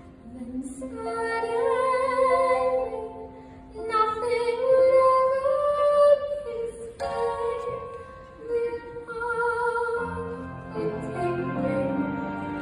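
A young female vocalist singing solo into a handheld microphone, carried through the stage speakers over instrumental accompaniment. She sings phrases a few seconds long with long held notes, and the lower accompaniment notes grow stronger near the end.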